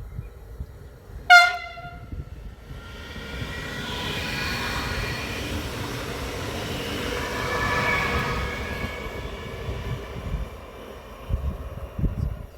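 A train gives one short, high horn blast about a second in, then passes, its running noise building and fading over several seconds. Low thumps come near the end.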